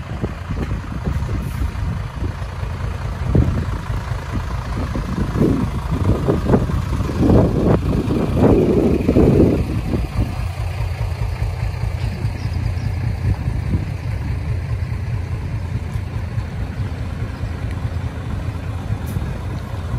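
Diesel engines of decorated Hino dump trucks running as they roll slowly past at low revs, a steady low rumble that swells louder for several seconds near the middle.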